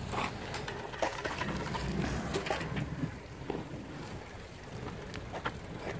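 BMX bike rolling on asphalt with a low tyre rumble and scattered, irregular clicks and knocks from the bike.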